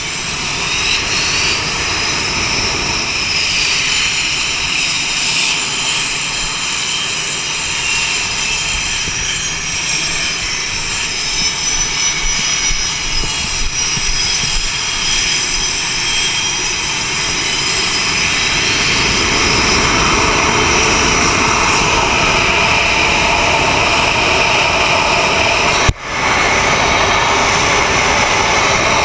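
F/A-18 jet engines running on an aircraft carrier flight deck: a loud, continuous rumble with high turbine whines that glide up and down in pitch. The sound grows louder about two-thirds of the way through and drops out for an instant near the end.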